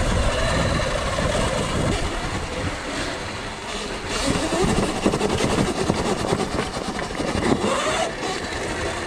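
Electric dirt bike ridden off-road: its motor and chain drive whine, rising and falling in pitch with the throttle. Short rattling knocks from the bike come through in the middle stretch.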